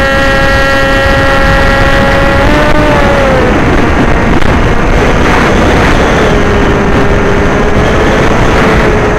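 Motor and propeller whine of an FPV aircraft heard on its onboard camera microphone. The whine is steady, then drops in pitch about three seconds in and settles lower, over loud wind rush.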